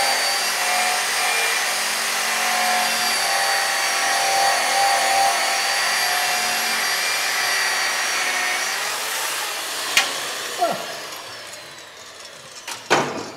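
Vevor electric polisher with an abrasive wheel grinding old paint off an aluminium reefer shell: a steady, loud grinding whine. After about nine seconds the pitch drops and the tool winds down, followed by a few sharp knocks near the end.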